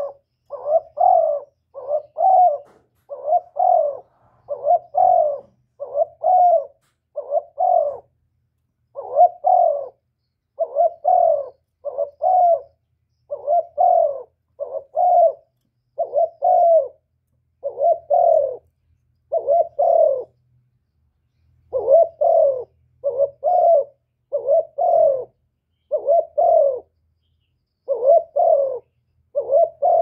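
Spotted dove (cu cườm) cooing repeatedly in a steady run of short, low coos in twos and threes, with a brief pause a little over two-thirds of the way through.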